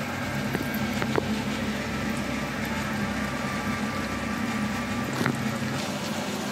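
Chicken wings deep-frying in a wok of hot oil: a steady sizzling and bubbling over a low hum, with a few light clicks of chopsticks against a porcelain plate, twice about a second in and once near the end.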